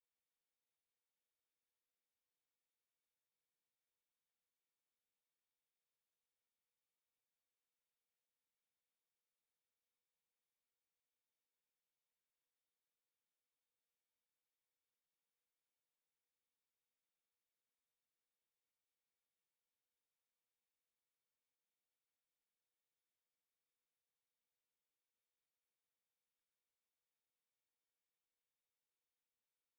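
Steady, loud 7777 Hz pure sine test tone, a single high-pitched whistle-like pitch held without change, used to check a speaker's or headphone's treble response.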